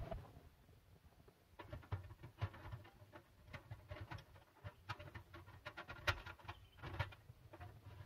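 Small irregular clicks, scrapes and rattles of a butane gas canister being handled and fitted into a portable cassette gas stove, with a couple of sharper clicks near the end.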